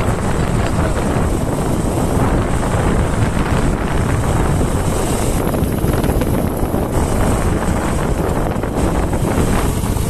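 Wind rushing over the microphone of a phone carried on a moving motorcycle, a steady loud rumble with the bike's engine and road noise underneath.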